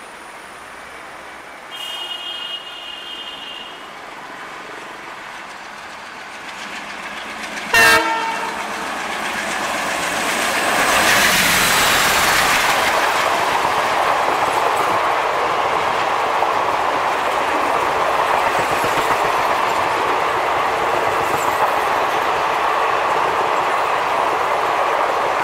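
WDM3D diesel-electric locomotive working uphill on a gradient at the head of an express train. It sounds its horn twice, a fainter call about two seconds in and a short loud blast about eight seconds in, then runs close past, and the coaches follow with a steady rumble and clatter of wheels.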